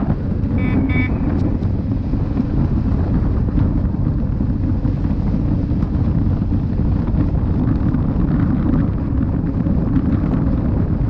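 Wind buffeting the microphone of a rider moving on an electric unicycle: a steady, dense low rumble with no let-up.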